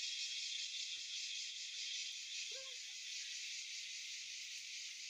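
Steady, high-pitched drone of a forest insect chorus, with no low sound under it.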